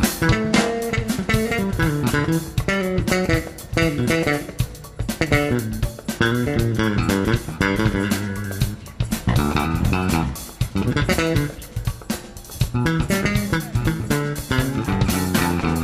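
Band music with a guitar featured, playing quick runs of notes over a bass guitar line.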